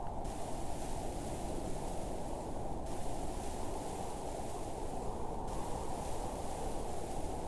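Steady wind with a low, even rush and a faint hiss above it, no gusts or breaks.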